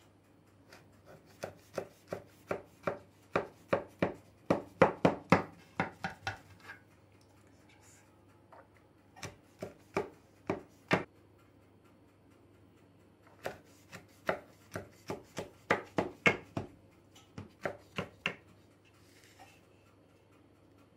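A large kitchen knife cutting down through stacked layers of raw filo dough in a baklava pan, making a rapid series of sharp cutting strokes, about three a second. The strokes come in three runs with short pauses between them.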